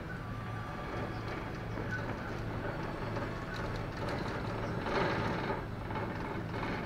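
Steady low drone of a ferry's engines and deck machinery, a constant hum with a noisy rush over it that swells briefly about five seconds in.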